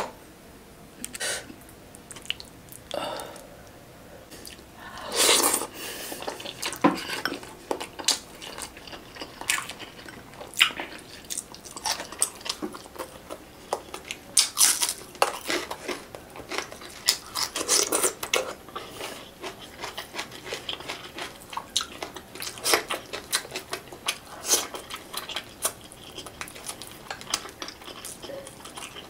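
Close-miked eating sounds from a person eating coconut-milk-stewed tilapia by hand: wet chewing, lip smacks and finger sucking in irregular sharp clicks, with a few louder bursts and light clinks of the dish.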